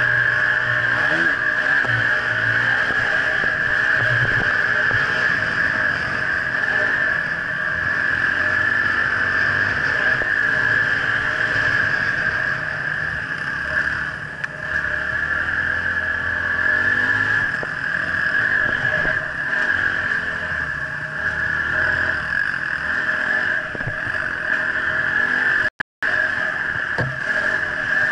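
Dirt bike engine running and rising and falling with the throttle on a rough forest trail, heard close with a steady hiss from a rider-mounted camera. The sound cuts out for a split second near the end.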